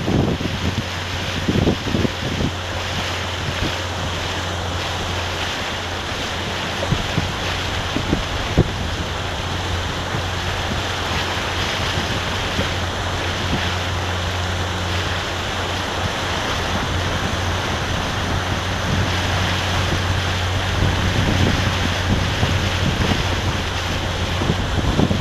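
Wind buffeting the microphone over rushing water on open water, with a steady low hum underneath and a couple of brief knocks.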